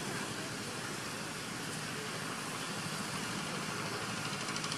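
Steady outdoor background noise, an even hiss with a few faint short chirps over it.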